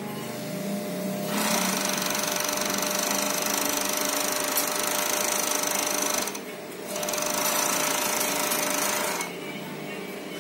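Industrial overlock sewing machine stitching in two runs. It starts about a second in, breaks off briefly past the middle, runs again and stops near the end. A steady motor hum carries on under it the whole time.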